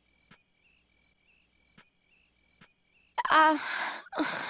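Faint, evenly repeating cricket chirps over a quiet cartoon soundtrack. About three seconds in, a woman's voice breaks in with two loud, wavering, crying outbursts.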